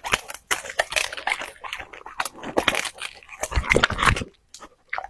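A dog chewing crunchy food: a quick, irregular run of crisp crunches that stops about four seconds in.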